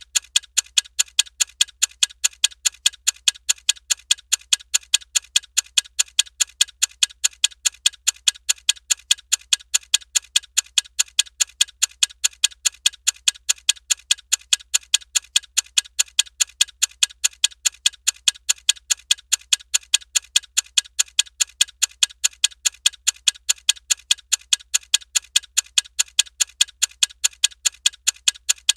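Ticking time-bomb clock sound effect: crisp, high ticks repeating at a steady, fast, even pace, with no change in speed.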